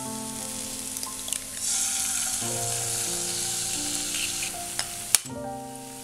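Raw egg sizzling as it drops into hot oil in a frying pan, the hiss swelling about a second and a half in and easing near the end. A single sharp crack of eggshell on the pan near the end, over soft background music.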